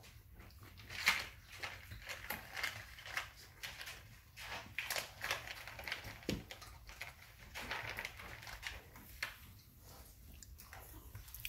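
Puppies eating dry kibble and scrabbling in a food dish, knocking pieces out onto a wooden floor: a run of irregular small clicks and crunches.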